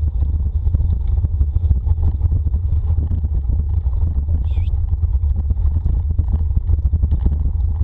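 Wind buffeting the camera microphone and wheels rattling over a dirt forest trail as a dog team pulls the musher at speed: a steady low rumble with constant small crackles, and a brief high squeak a little past halfway.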